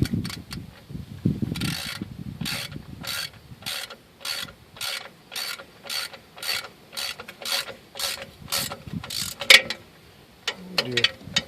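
Socket ratchet wrench clicking through repeated swings, about two strokes a second, driving a fastener on a truck's rear drum brake, ending with one louder knock.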